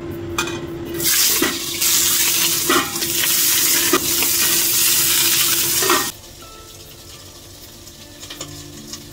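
Fish laid into smoking-hot oil in a carbon-steel wok on a gas burner, frying with a loud sizzle, with a few metal clinks as a stainless lid is set over it. About six seconds in the sizzle drops away abruptly to a faint level.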